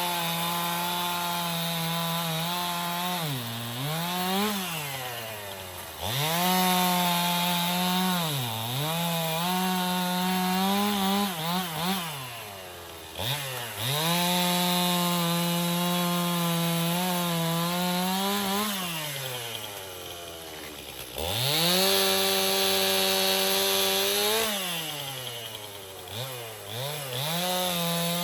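Stihl gasoline chainsaw cutting firewood from a log, held at high revs through long cuts. The engine drops briefly toward idle several times and revs back up each time.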